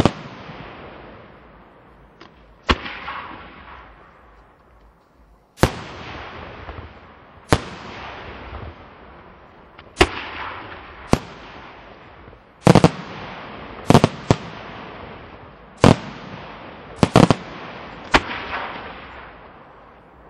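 Aerial firework shells bursting in the night sky: about a dozen sharp bangs at irregular intervals of one to three seconds, several coming in quick pairs, each trailing off in a fading echo.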